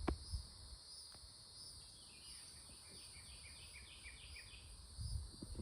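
Quiet outdoor ambience: a steady, high-pitched insect drone over a low wind rumble on the microphone. Midway, a bird sings a run of about eight short, down-slurred notes. A few soft low thumps come near the end.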